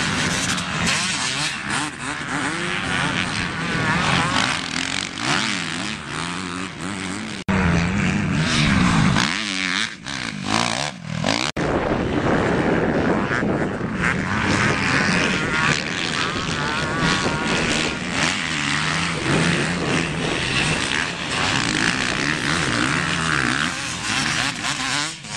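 Motocross dirt bikes racing round a dirt track, their engines repeatedly revving up and falling away as the riders accelerate and back off.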